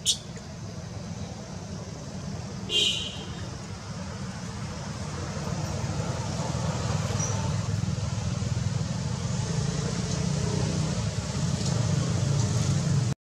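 Steady low rumble of motor traffic that grows louder over the last several seconds, with a brief high squeak about three seconds in.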